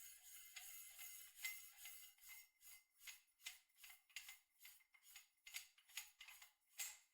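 Faint handling noise from projector lens parts being fitted by hand: a string of small irregular clicks and rubbing scrapes, several a second.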